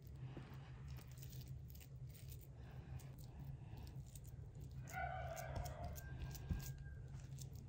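Faint small clicks and light clatter of kitchen work under a steady low rumble, with a brief pitched call about five seconds in.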